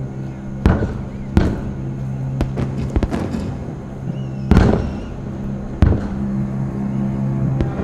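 Fireworks shells bursting, about five loud bangs with smaller crackles between them, the loudest a little past the middle. Steady background music with long held low notes plays under the bursts.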